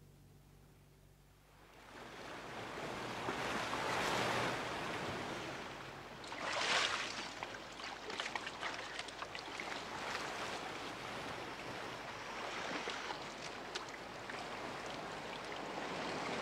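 Sea waves washing in on a rocky shore, fading in after a second and a half of near silence. The wash swells twice, the second swell sharper and hissing, then runs on with fizzing, crackling spray.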